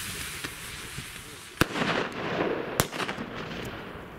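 Aerial fireworks: a hiss dies away, then two sharp bangs a little over a second apart, the first followed by a rolling echo, with faint crackles around them.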